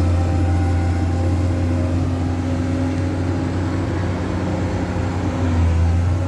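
Komatsu PC200 excavator's diesel engine running steadily with a deep drone, swelling briefly near the end.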